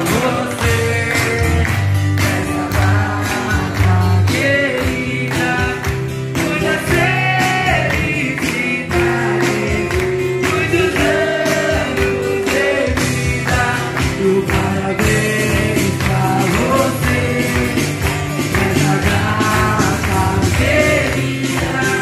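Live band music: a woman singing into a microphone over strummed acoustic guitars and a steady percussion beat.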